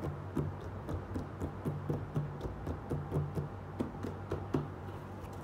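Fingers tapping on and handling a cardboard toy box: an irregular run of light taps, several a second, over a steady low hum.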